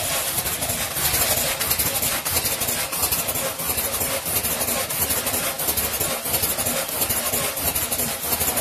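Potato chip pillow packaging machine running steadily, a dense mechanical clatter and hiss with many quick clicks as it forms, fills and seals the bags.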